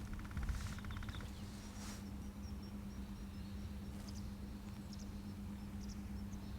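Boat outboard motor running with a steady low hum, while small birds give thin, high chirps over it, repeated at intervals.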